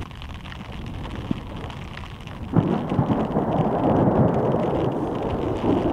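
Thunder from a thunderstorm, starting sharply about two and a half seconds in and rumbling on, with rain falling.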